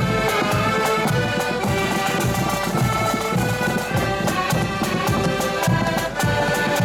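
Accordion band playing a marching tune on piano accordions, with a drum beating a steady march time.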